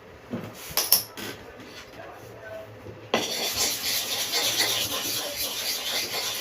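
A few light clicks of metal being handled, then about three seconds in a steady gritty scraping starts: a clipper blade being rubbed on a sharpening stone.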